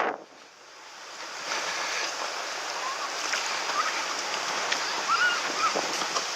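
Surf washing on the shore, a steady hiss of waves that swells back up after a brief lull at the start; a few faint short chirps sound in the middle.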